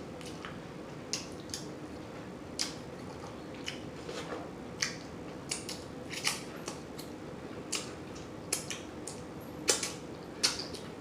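Open-mouthed chewing with wet lip smacks, irregular and sharp, about two a second, while eating rib meat.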